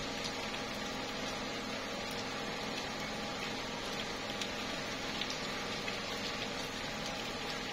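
Steady slow rain falling on tree leaves: an even hiss of rain with the odd single drop ticking out of it.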